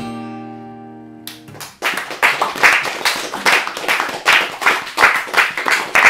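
A final strummed chord on an acoustic guitar rings and fades away. Then audience applause breaks out about a second and a half in and carries on.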